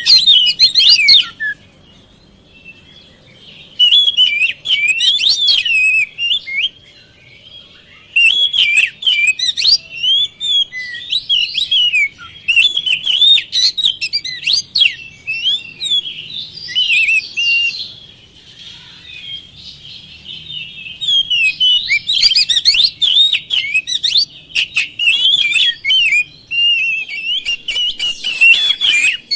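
Oriental magpie-robin (kacer) singing in bouts of quick, varied whistles and chirps, with pauses of one to three seconds between bouts, and an unbroken run of song in the last third.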